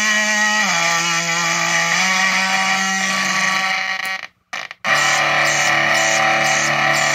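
Electric guitar through a fuzz pedal made of two Ugly Face-based circuits running in parallel, giving a thick, synth-like tone. Sustained notes step and glide in pitch, cut out briefly about four seconds in while the knobs are being turned, then come back as a steady drone with a faint pulsing.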